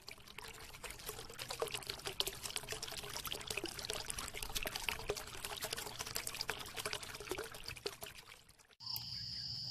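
Water pouring and trickling, a dense run of tiny splashes, which cuts off suddenly about a second before the end. A steady high-pitched insect chirring, crickets, follows.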